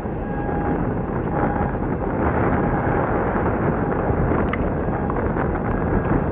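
Wind buffeting the microphone over a steady low rumble, with a faint high hum that comes and goes.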